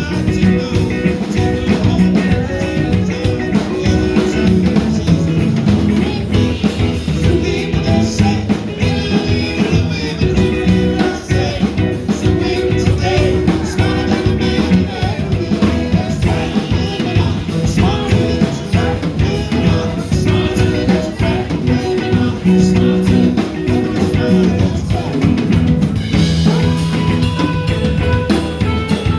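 A band playing an upbeat calypso-rock song, with drum kit, guitar and singing.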